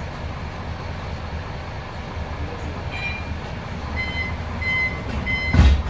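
Inside a moving city bus: steady engine and road rumble, with a run of short high beeps that begins about halfway and repeats about twice a second, and one heavy thud near the end.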